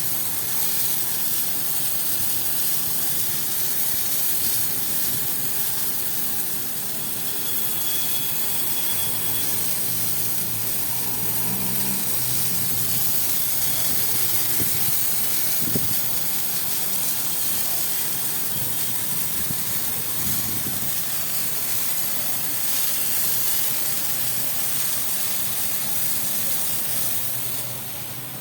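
Loud steady hiss of rushing air or spray, with a faint low machine hum underneath partway through.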